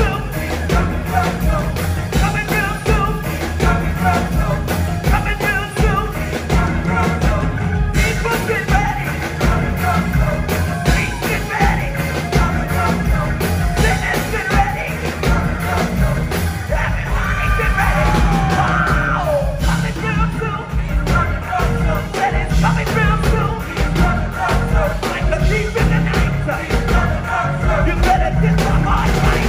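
Live gospel choir and band performing: voices singing over a steady drum and bass groove.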